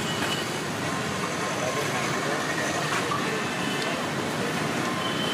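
Busy roadside street ambience: steady traffic noise with background voices.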